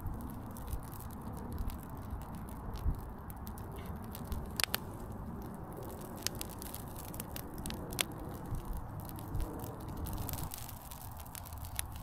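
A bonfire of wet ragwort, lit with diesel-soaked hay as a wick, burning and crackling, with irregular sharp pops, the loudest about four and a half and eight seconds in. Low wind rumble on the microphone underneath.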